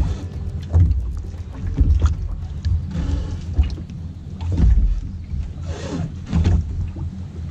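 Small waves lapping and slapping against the hull of a small anchored fishing boat, in irregular splashy knocks about once a second over a low rumble.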